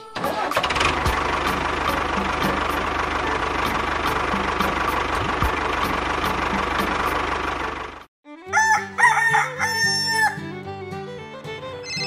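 A tractor engine running steadily for about eight seconds, then cutting off abruptly. A rooster crows shortly after, and light music follows near the end.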